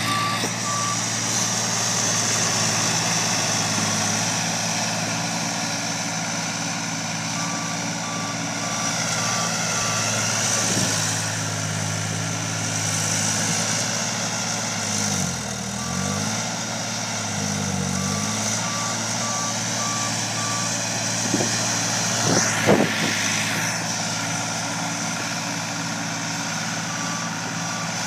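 New Holland L135 skid steer engine running steadily as the machine pushes snow, its pitch dipping briefly twice near the middle, with a reversing alarm beeping in several short runs. A few knocks about three quarters of the way in.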